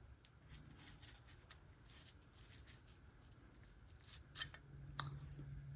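Mostly near silence with faint clicks and taps from handling a small loudspeaker's steel frame and field-coil housing, and two sharper clicks about four and five seconds in.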